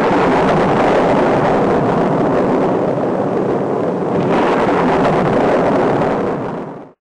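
A loud, steady, wind-like rushing noise that grows brighter about four seconds in and cuts off suddenly near the end.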